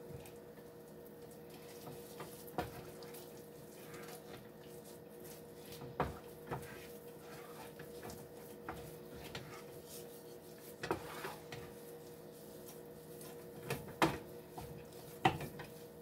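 Wooden spoon stirring and scraping a thick, nearly balled flour-and-milk paste in a nonstick skillet, with a few sharp knocks of the spoon against the pan over a steady low hum.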